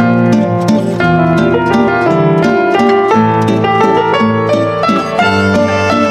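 Instrumental background music with plucked-string notes over a steady bass line.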